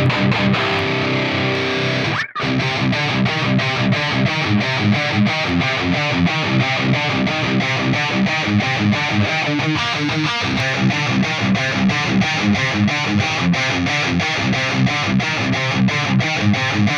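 Distorted electric guitar played through the STL Tonality amp-simulator plugin, a fast, steady run of picked notes in an even rhythm, with a brief break in the sound about two seconds in.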